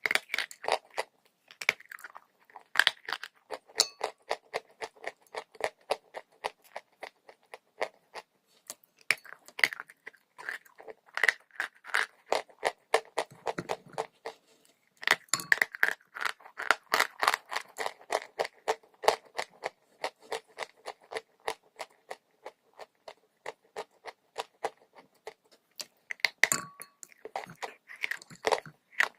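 Close-miked crunching and chewing of dry chalk: dense, rapid crisp crackles, several a second, with brief lulls.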